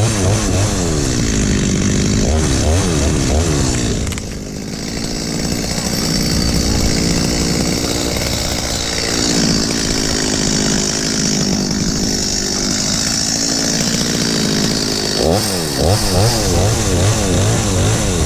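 Chainsaw engine running hard, revving up and down in quick wavering bursts, then held at a steadier high speed for most of the middle before revving up and down again near the end.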